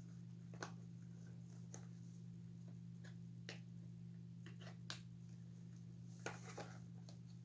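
Faint handling noise: a few scattered light clicks and rustles of hands working a plastic figure and its cloth shirt, over a steady low hum.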